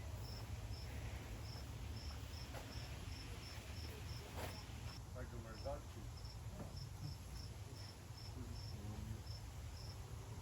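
A cricket chirping steadily, about three short high chirps a second, over a low rumble.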